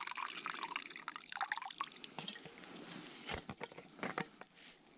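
Hot tea being poured from a flask into a cup. The stream tapers off over the first two seconds, followed by a few separate drips and light clicks.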